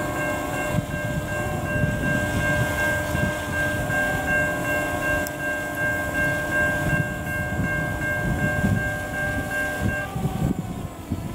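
Diesel locomotive horn sounding one long steady chord of several notes for about ten seconds, cutting off near the end, over a low uneven rumble.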